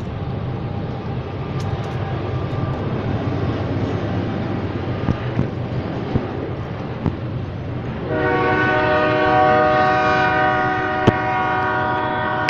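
Loaded freight train of covered hopper cars rolling through a grade crossing, a steady rumble with a few sharp clicks. About eight seconds in, a loud held chord of several steady tones starts suddenly and stays on over the rumble.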